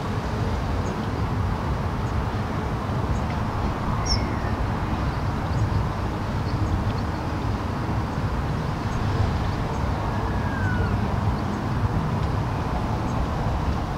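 Steady outdoor background noise dominated by a low rumble of wind on the microphone, with a few brief high chirps about four and ten seconds in.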